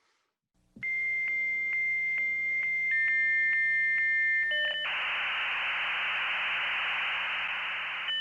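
Dial-up modem handshake. A steady high answer tone starts about a second in, broken by a click roughly every half second. A second tone joins, then a brief chord of tones, and from about five seconds in a loud, even hiss as the modems train.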